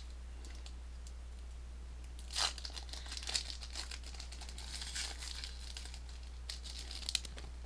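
Pokémon card booster pack wrapper crinkling and tearing as it is opened, in scattered rustles over about five seconds with the sharpest tear at the start, under a steady low hum.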